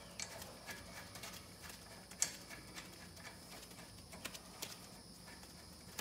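Faint, irregular metallic clicks and ticks as a front brake caliper bolt is started by hand into its bracket; the loudest tick comes about two seconds in.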